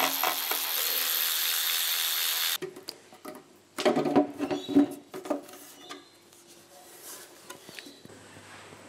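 An air ratchet spins a sump bolt out of a Holden 304 V8 for about two and a half seconds, then cuts off sharply. About a second later the pressed-steel oil pan is worked loose and lifted off the block with a burst of metal clunks and scrapes, followed by quieter handling noises.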